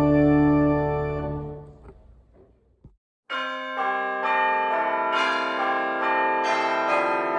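Pipe organ chord held and dying away over the first two seconds. After a moment of silence, church bells start ringing about three seconds in: a run of overlapping strikes that keep ringing on.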